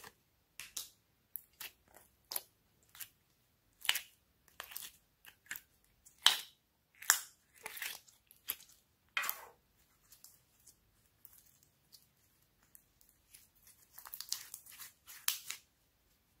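Irregular crackles and crinkles of a thin clear plastic slime container being handled while foam slime is pulled out of it by hand, with a denser run of crackles near the end.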